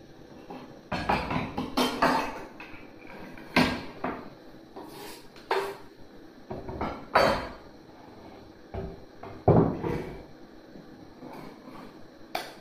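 A series of irregular knocks and clunks, about ten of them, some followed by a short ring.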